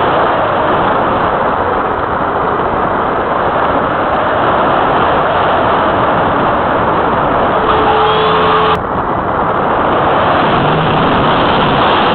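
Loud, steady wind rush over the microphone of a keychain camera mounted on the wing of a model glider in flight. About nine seconds in, a brief faint tone ends with a sharp click.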